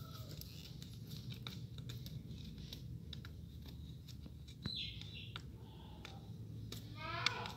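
Fingers picking and scratching at corn kernels and grit lodged in the crack between a concrete wall and floor tiles, making many small clicks and scrapes. A short, quick chirping call sounds near the end.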